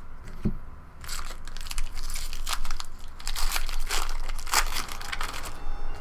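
Baseball card pack wrapper crinkling and tearing as it is opened, a dense run of crackles starting about a second in and stopping near the end.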